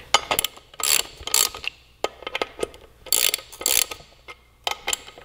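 Hand ratchet clicking in short bursts with pauses between, as the rear sprocket's locking nuts are run down and seated before final torque.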